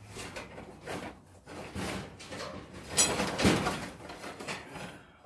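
Heavy sand-filled welded steel anvil stand being worked over onto its side: a string of scrapes and knocks, the loudest about three seconds in, ending in a heavy thud.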